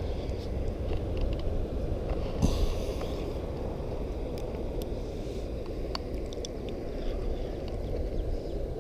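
Steady low outdoor rumble with a few faint clicks and a brief rush of noise about two and a half seconds in, from pliers and hands working a deep-swallowed hook out of a small bass.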